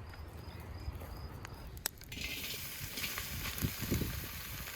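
Pieces of fatty meat sizzling in lamb fat in a hot cauldron. The sizzle starts suddenly about two seconds in, just after a sharp click, and then runs steadily.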